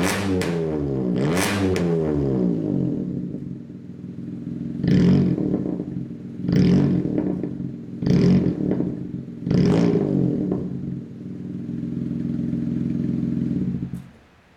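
Honda N-BOX Custom's 658 cc three-cylinder engine through a full straight-through exhaust, revved up and down twice, then blipped four times in quick, sharp revs with idle between. It settles to a steady idle and is switched off near the end.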